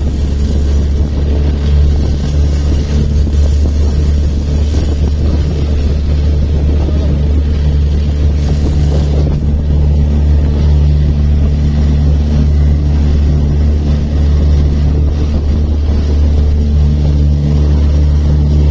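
Small open motorboat under way, its engine running at a steady low hum, mixed with rushing wind and water.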